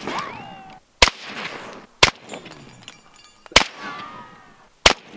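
Four shots from a suppressed rifle, a second to a second and a half apart, each a sharp crack with a short decaying tail.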